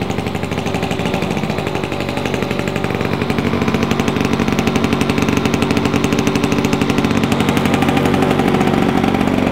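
Small two-stroke lawnmower engine running steadily, its rapid firing pulses making a fast, even popping rhythm that grows slightly louder.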